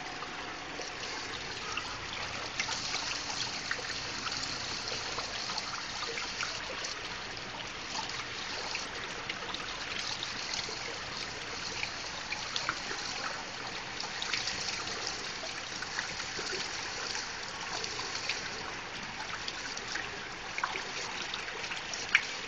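Waterfall: falling water splashing steadily, a continuous hiss dotted with small splashes, with one louder splash near the end.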